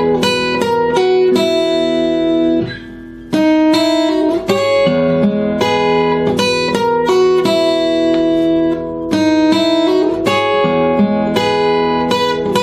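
Acoustic guitar played fingerstyle: a slow phrase of separately plucked single notes and note pairs, with a brief drop in loudness about three seconds in.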